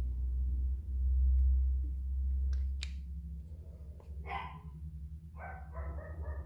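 A dog barking: one bark about four seconds in, then a quick run of short barks near the end. Before that, a low rumble and two sharp clicks about two and a half seconds in.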